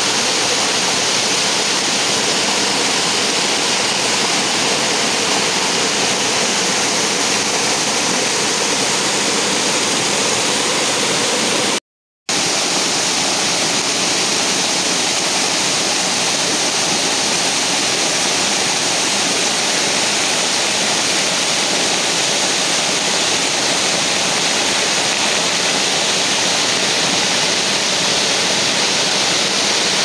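Waterfall: a loud, steady rush of water pouring over rocks, cutting out for about half a second around twelve seconds in.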